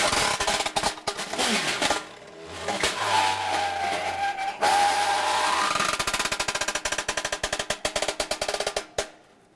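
Improvised percussion on found objects: dense rolls of small rapid taps and clicks, with a ringing pitched tone that dips and rises again around the middle, then a fast even patter of strokes that stops abruptly near the end.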